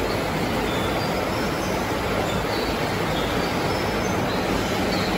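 Welding electrode production line running: a loud, steady, dense rattle and rumble of machinery and steel rods moving on the conveyor, with faint short high squeaks.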